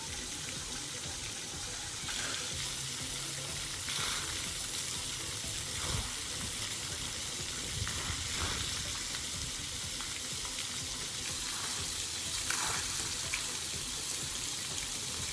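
Splash pad water jets spraying and splashing, a steady hiss.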